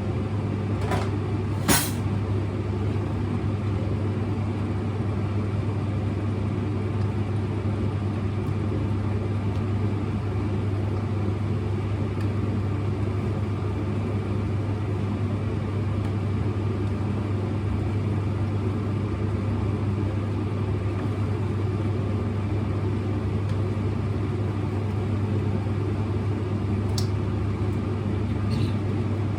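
A kitchen appliance running with a steady low electric hum, and a few light clicks near the start and again near the end.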